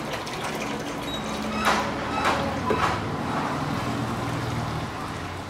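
Water glugging out of an upturned plastic bottle into a stainless steel pot, with a few sharp crackles from the thin plastic bottle as it is handled, then water poured from a steel jug back into the bottle.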